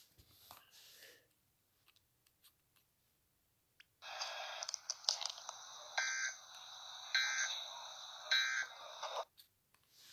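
Emergency Alert System end-of-message data bursts: three short screeching digital bursts a little over a second apart, over a steady harsh noise that starts about four seconds in and cuts off just after nine seconds.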